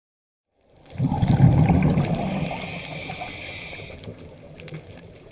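Underwater rumble of water and bubbles picked up by a camera below the surface. It starts about a second in, loudest at first, then slowly fades.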